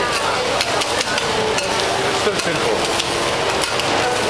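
Metal spatulas clacking and scraping on a flat steel teppanyaki griddle as egg is chopped and pushed around, over a steady sizzle of frying.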